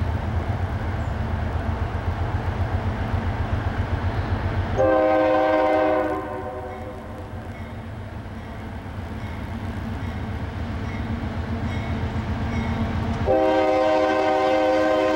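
GE AC4400CW diesel locomotive approaching with a low rumble, then sounding its multi-chime air horn in two long blasts. The first comes about five seconds in and lasts a second and a half; the second starts near the end.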